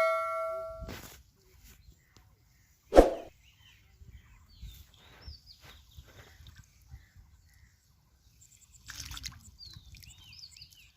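A ringing metallic ding fading out, a single sharp thud about three seconds in, then birds chirping faintly outdoors.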